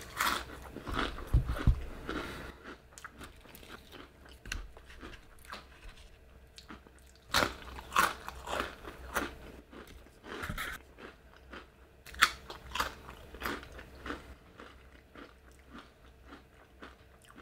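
A person biting and chewing crunchy food: irregular crisp crunches, loudest near the start, around seven to eight seconds in and again about twelve seconds in.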